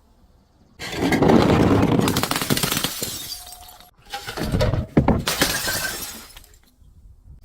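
Glass bottle being crushed and shattering: a dense crackling crunch of breaking glass starts about a second in and lasts about three seconds, then a second bout of crunching with several sharp cracks follows and dies away near the end.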